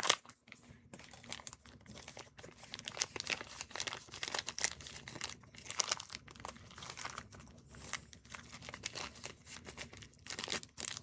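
Irregular rustling and sharp clicking from hands handling small RC gear parts and tools during a spur and pinion gear swap.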